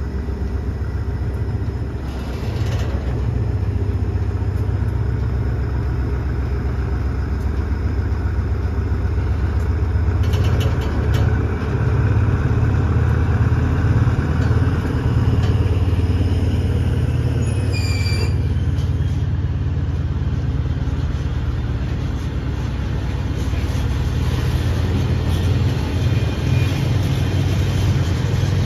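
Diesel freight train of tank wagons pulling out, hauled by the GEA 4537 diesel-electric locomotive. A steady low engine rumble runs under the wagons rolling on the rails, with a few knocks and a brief squeal about two-thirds of the way through.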